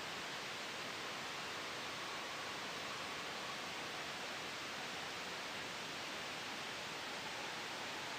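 Steady synthetic white noise blended with a gentle wind sound: an even, soft hiss that does not change.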